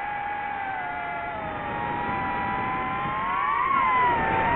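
DJI FPV drone's motors and propellers whining in flight: a cluster of steady pitches that rise and split apart about three and a half seconds in, as the motors speed up unevenly while the drone banks into a turn.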